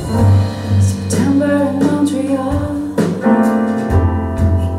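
A recorded song with a female voice singing over piano and bass, played back over a hi-fi system's floor-standing loudspeakers.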